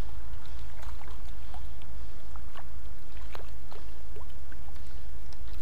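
Hooked trout splashing and thrashing at the water's surface while being played on the line: a run of short, irregular splashes and drips, over a steady low rumble.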